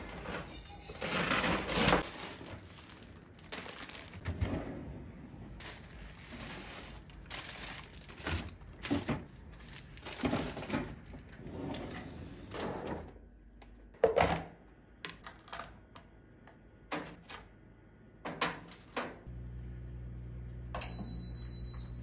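Groceries being unpacked from an insulated delivery bag and put into the fridge: irregular rustling of plastic packaging with knocks and clatters of items set down and drawers handled. Near the end a steady low hum starts, and a single short electronic appliance beep sounds.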